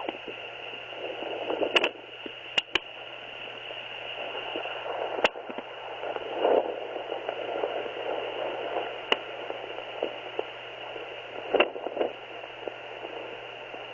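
Handheld fetal Doppler hissing with static through its small speaker while the probe is moved around over the belly, searching for a ten-week fetal heartbeat. A few sharp clicks and brief swishing surges come as the probe shifts, with no clear heartbeat rhythm.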